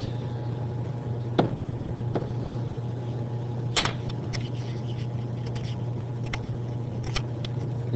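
Steady low electrical hum from the recording setup. About eight short, light clicks and taps are scattered through it, the most prominent about a second and a half in and around four seconds in.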